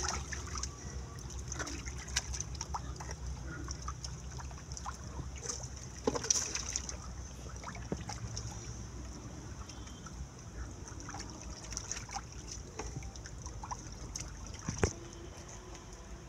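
Shallow muddy water splashing and trickling as catfish are scooped up by hand and dropped into a plastic crate, with irregular wet slaps, two of them sharper, about six seconds in and near the end.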